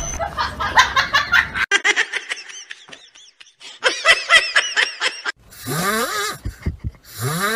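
People laughing in quick bursts of short repeated 'ha' sounds, twice, followed near the end by longer rising, breathy sounds.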